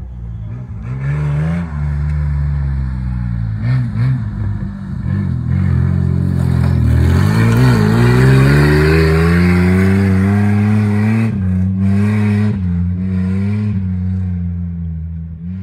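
Mitsubishi Pajero's 3.0 V6 engine revving hard off-road, its pitch rising and falling with the throttle and loudest about halfway through, with a few knocks and clatters.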